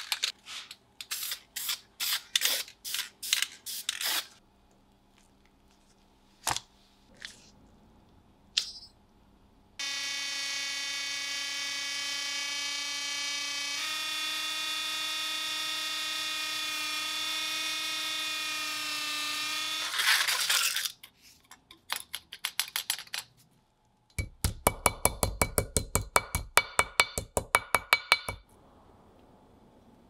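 Handheld rotary tool with a small wheel running for about ten seconds, a steady high whine that steps up in pitch partway through and stops suddenly; it is being used on a Swiss Army knife's tweezers. Before it comes a string of short sharp hissing bursts, and near the end a few seconds of fast rattling pulses.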